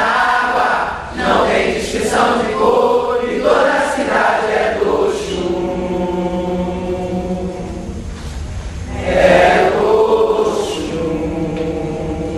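A group of voices singing a chant together, mixed men and women, with long held notes in the middle and again near the end.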